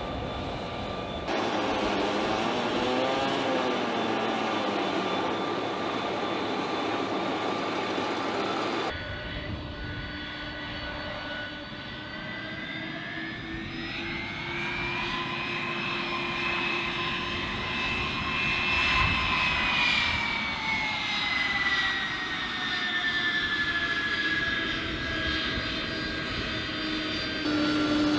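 Turbofan engines of a Boeing KC-46A Pegasus tanker running as it taxis, a whine over a steady rush. About halfway through, the whine rises in pitch as thrust is added, then slowly falls again as it is eased off.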